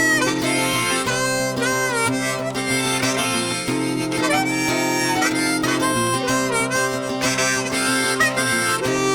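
Harmonica playing a bending, wavering melody over acoustic guitar chords in an instrumental break of a folk song.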